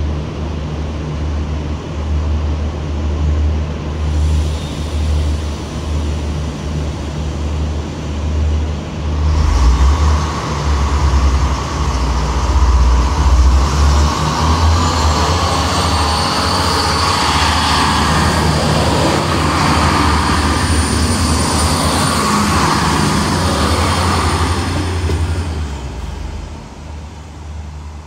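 Coupled X 72500 (XTER) diesel railcars running: a steady low diesel hum, growing louder from about ten seconds in as the train moves past. A thin high whine joins during the loudest stretch, and the sound fades near the end.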